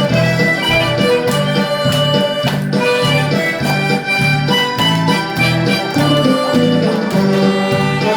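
Harmonica playing a melody over a backing track with guitar and a steady, pulsing bass beat.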